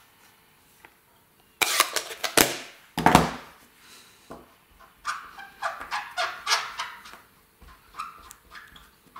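Plastic Stampin' Pad ink pad and clear acrylic stamp block handled on a tabletop. There are a couple of clattering knocks about two and three seconds in, then a run of quick light taps as the ink pad is dabbed onto the rubber stamp to ink it.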